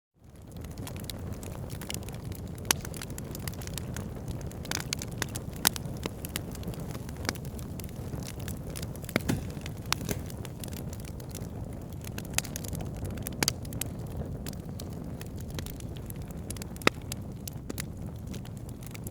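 Wood fire in a fireplace crackling: a steady low rush of flames with frequent sharp pops and snaps, a handful of them much louder. It fades in from a moment of silence at the start.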